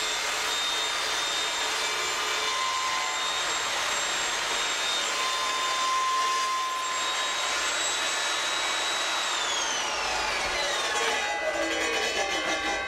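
Evolution Rage table saw running at speed with a steady high whine. About nine seconds in it is switched off, and the whine falls in pitch as the blade spins down.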